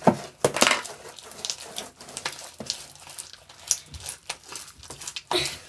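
Hands working a stiff, overactivated cloud slime, squishing and pulling it, with a run of irregular sticky clicks and crackles, the loudest just at the start.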